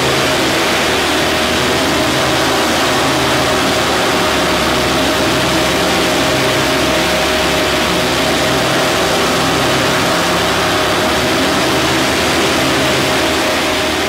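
Loud, dense droning noise from a powerful sound system, with a steady hum above and deep bass tones that switch between two pitches every second or so.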